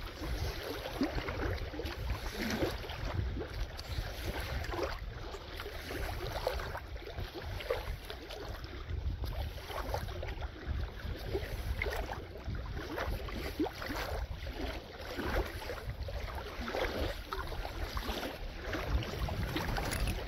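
A magnet-fishing rope being pulled in hand over hand through gloved hands makes irregular rustling and scraping sounds, over a steady low rumble of wind on the microphone.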